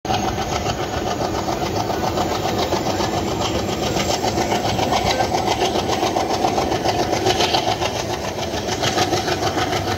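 Passenger train running at speed, heard from an open coach doorway: an Alco diesel locomotive's engine chugging with a fast, even beat over the steady rumble of the coach wheels on the track.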